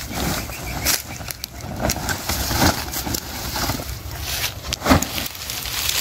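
Footsteps crunching and rustling through dry cut grass and weeds, in irregular crackles, with the clatter of wire-mesh cage traps being carried. A low steady rumble runs underneath.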